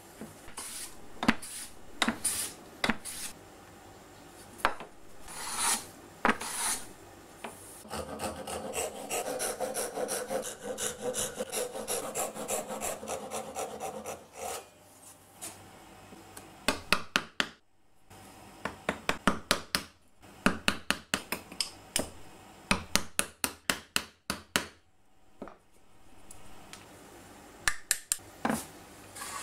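Hand woodworking tools on wood in turn. First a few hissing strokes of a Japanese wooden hand plane (kanna). Then a Japanese backsaw (dozuki) sawing in quick, steady strokes for about six seconds. Then long runs of sharp taps of a hammer driving a chisel.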